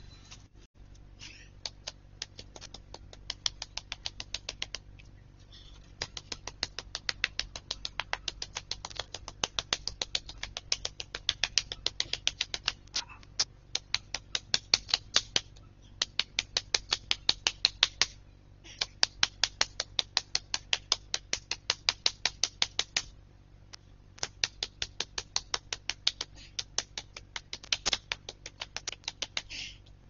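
Rapid, regular tapping of a small hand tool on the concrete slab's surface, several taps a second in runs of a few seconds with short pauses between.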